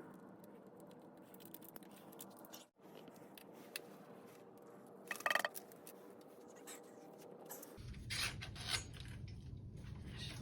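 Hand work on bicycle parts: light scraping and rubbing of tools and metal parts with scattered small clicks, and a brief louder rattle about five seconds in. A low steady hum comes in near the end.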